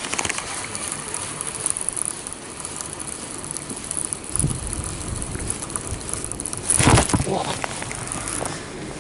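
Spinning reel being cranked to retrieve a dragged soft-plastic lure, a steady noisy run of small clicks and crackles. About seven seconds in comes a sudden, louder burst of rod and handling noise at what the angler takes for a bite.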